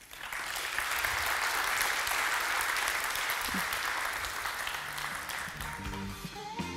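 Audience applauding, starting at once and easing off slightly over the seconds; music fades in underneath near the end.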